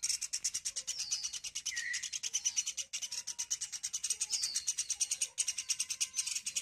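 Hand-fed pet woodpecker calling nonstop in a fast, high-pitched chatter of about ten notes a second, with a few short falling notes mixed in.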